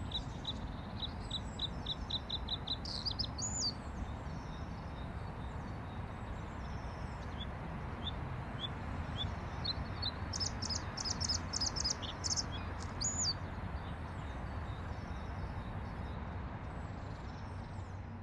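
Male bluethroat singing. A quick run of repeated high ticking notes climbs into a brief higher flourish, scattered single notes follow, and a second rapid, higher trill comes a little past halfway. A steady low rumble runs underneath.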